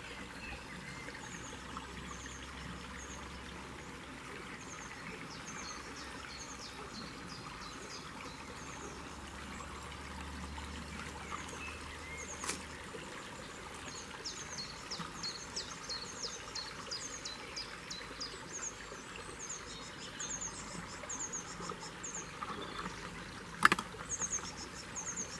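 Small shallow stream trickling over stones, with birds chirping in short high calls that grow busier in the second half. A single sharp knock near the end stands out as the loudest sound.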